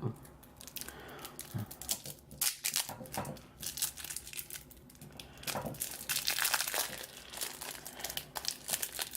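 Plastic packaging from a trading card pack crinkling in the hands, in quick irregular crackles that are busiest about six to seven seconds in.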